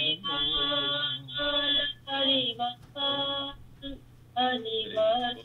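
A woman's voice singing a devotional kirtan chant in phrases of held notes with short breaks between them, heard through a video call's narrow, thin sound.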